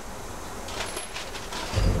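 Light clinks of hand tools and metal parts being handled at a workbench, with a dull thump near the end.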